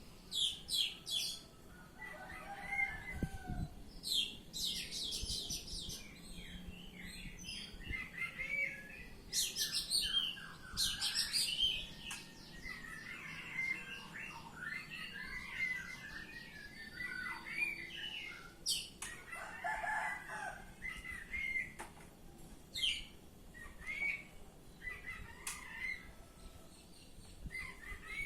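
Oriental magpie-robin (kacer) singing a long, varied song of whistled notes and rapid high trills, phrase after phrase without a break.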